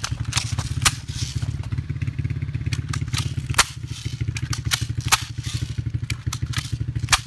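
A motor or engine running steadily with a fast low throb, with about a dozen sharp clicks at irregular intervals over it.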